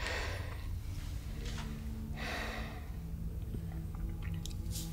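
A child breathing audibly: about three soft, noisy breaths or sniffs, the first at the start and the last and longest a little past the middle. Faint low held music notes come in after about a second.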